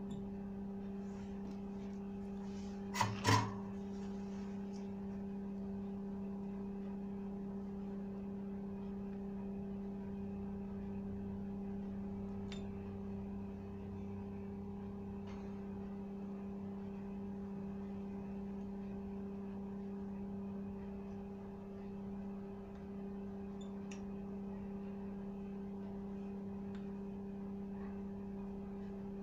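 A steady low electrical hum, with a fainter tone an octave above it. Two sharp clicks come about three seconds in.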